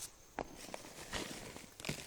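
Faint rustling and crinkling of hay being dug through by hand, with a few sharp clicks.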